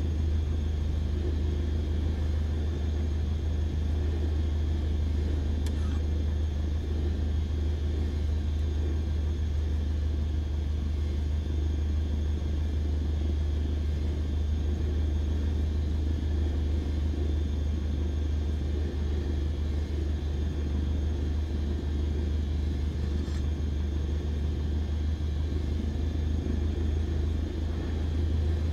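A car in motion, a steady low drone with no change in pace, with two faint ticks partway through.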